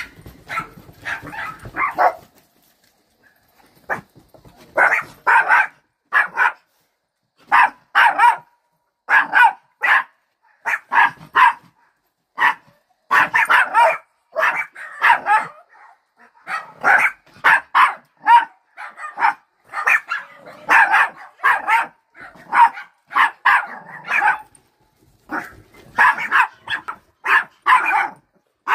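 Several miniature pinschers barking: short, sharp barks in quick runs that often overlap. The barking pauses for about two seconds near the start, then keeps on almost without a break.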